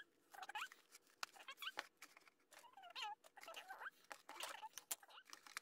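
Faint clicks of hard plastic toy pieces being handled and fitted together, with several short squeaks that wobble in pitch.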